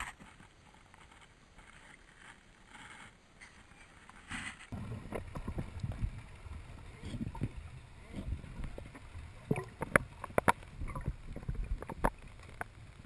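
Muffled underwater noise heard through a camera housing: a low rumble of moving water with scattered sharp clicks and crackles, starting about five seconds in after a quiet stretch.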